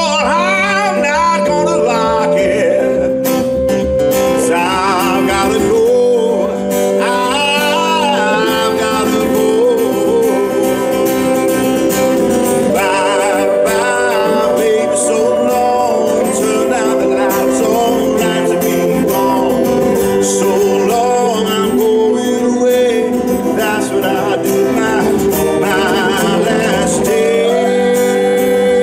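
Live performance of a slow song: a man singing over a strummed acoustic guitar, with keyboard accompaniment.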